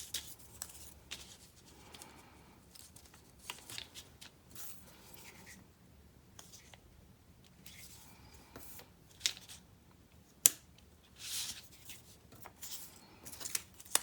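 Paper craft handling: paper rustling with scattered small clicks and taps. There is a sharp click about ten seconds in, then a short rustle.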